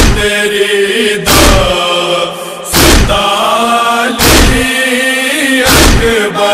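Noha backing: a chorus of voices holds a steady chanted drone. It is struck about every one and a half seconds by a heavy thump, the beat of matam (chest-beating) that keeps time in a noha.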